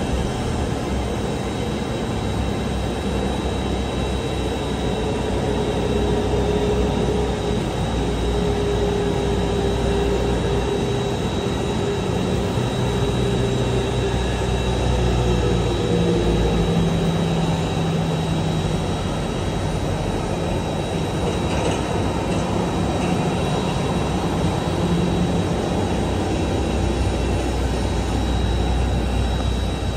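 Steady jet-airliner noise: a constant high whine over a low engine drone, with a middle tone that sinks a little partway through, from an airliner attached to a pushback tractor.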